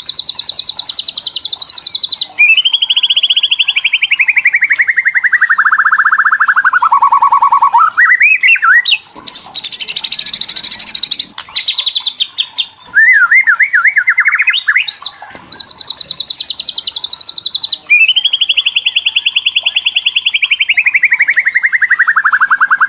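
White-rumped shama giving its 'kretekan' rattle, the agitated call used to provoke other shamas: long, very rapid trills, some held at a steady high pitch and others sliding slowly down in pitch over several seconds. About ten seconds in comes a harsh hissing burst, followed by quick wavering rising notes.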